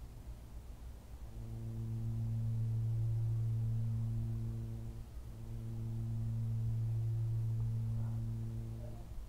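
A steady low hum on one unchanging pitch, heard twice for about four seconds each, with a short break about five seconds in; each hum swells up and fades out.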